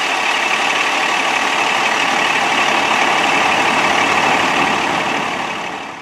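Pierce fire engine's diesel engine idling, a steady dense running noise that fades out near the end.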